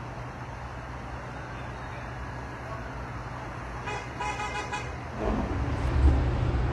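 Steady road-traffic noise, with a vehicle horn sounding for about a second past the middle. Toward the end a louder low rumble sets in.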